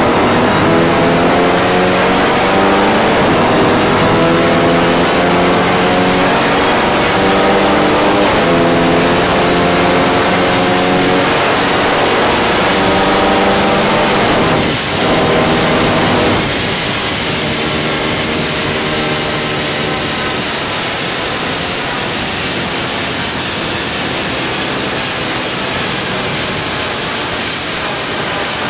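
Dodge Challenger SRT Hellcat's supercharged 6.2-litre HEMI V8 running under load on a chassis dyno, a loud, held engine tone at a fairly steady pitch. About halfway through it dips for a moment, then carries on somewhat quieter.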